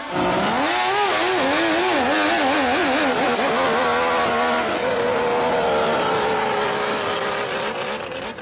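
Jet ski engine running hard: its pitch jumps up at the start and swings up and down several times, then holds a steady high note over a loud rushing noise, fading near the end.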